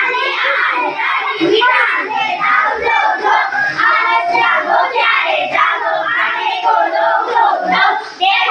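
A group of young children chanting loudly together in unison.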